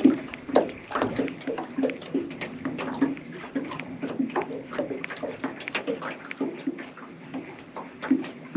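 Small waves of lake water lapping and slapping against a float tube, in quick irregular little splashes.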